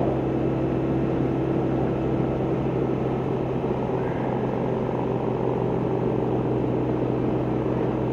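1999 BMW R1100RT's boxer-twin engine running steadily at highway speed, about 70 mph, a constant low hum under wind and road noise.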